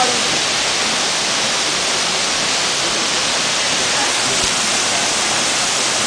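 Steady rushing of a tall waterfall plunging into its pool, an even, unbroken roar of falling water.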